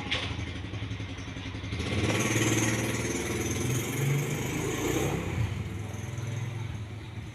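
Street traffic: a steady engine hum, with a vehicle passing louder from about two to five seconds in.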